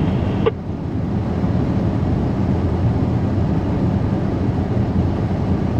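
Ford F-350 pickup driving in four-wheel drive, a steady low drone of engine and tyres heard inside the cab, with a brief click about half a second in.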